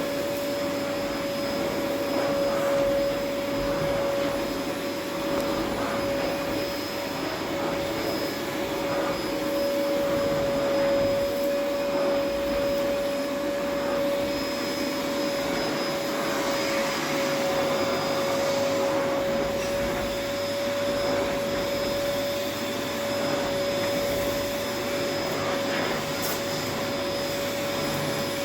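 An electric motor running steadily with rushing air: a constant whine held at one pitch over an even airy noise.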